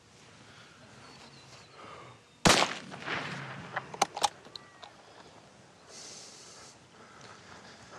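A single rifle shot from a scoped rifle, loud and sudden, with a short echoing tail, about two and a half seconds in. It is followed by a couple of sharp clicks about a second and a half later.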